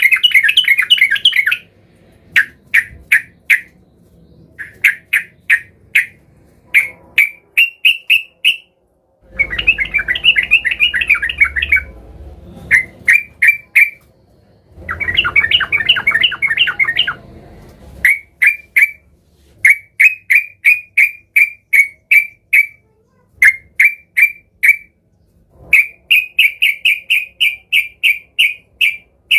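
Yellow-vented bulbul (trucukan) singing in an agitated, rival-seeking mood. It gives quick series of short, bubbly notes, a few to about ten at a time, broken by three longer dense chattering runs.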